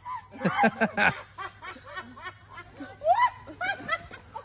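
Women laughing hard in a run of short giggling bursts, with a rising squeal of laughter about three seconds in.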